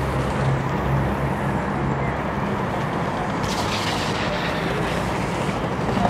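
Steady city street noise with a low traffic hum. Skateboard wheels roll across the paving for about two seconds in the middle.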